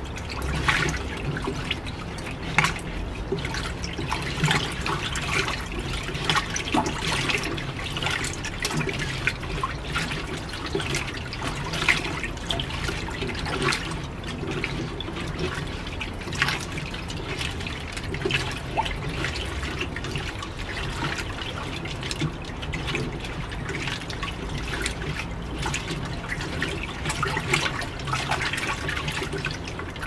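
Fisher & Paykel Washsmart top-load washing machine agitating a load in water: irregular sloshing and splashing over a steady low motor hum.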